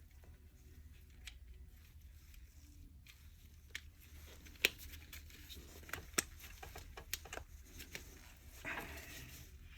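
Dyson vacuum cleaner head parts being handled and fitted together by hand: scattered clicks and knocks, two sharper clicks about halfway through, and a short rustle near the end.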